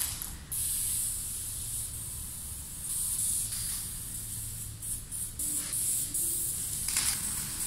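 Aerosol spray paint can hissing as lines are sprayed: one long burst of a couple of seconds, then several shorter bursts.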